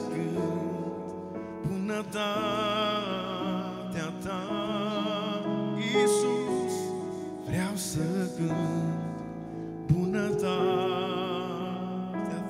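A man singing a slow worship song with vibrato over sustained keyboard chords.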